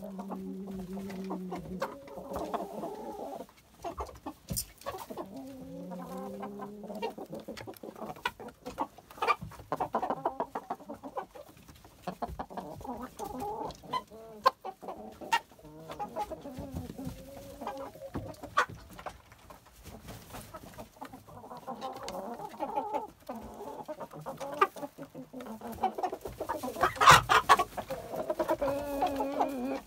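A flock of Brahma chickens clucking and murmuring in low, drawn-out calls, with one louder, sharper call near the end.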